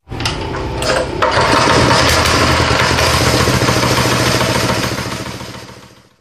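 Small single-cylinder four-stroke GX160-type engine running, picking up revs about a second in and holding steady, then fading out near the end.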